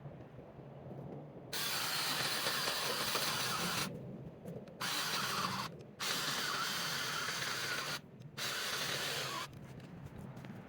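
Cordless battery-powered mini-chainsaw running in four separate trigger bursts, the motor and chain starting and stopping abruptly each time, the longest about two seconds.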